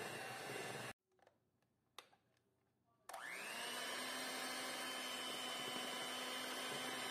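Electric hand mixer beating batter. It stops abruptly about a second in, there is a brief hush with a single click, and at about three seconds it starts again, its whine rising as the beaters spin up, then runs steadily.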